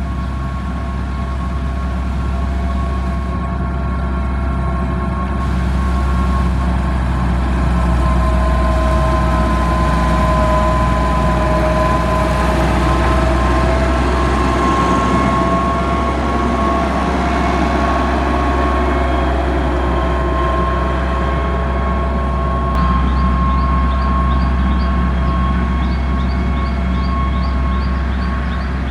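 Motor grader's diesel engine running steadily while working gravel, with a steady whine over the deep rumble that slowly sags and rises in pitch.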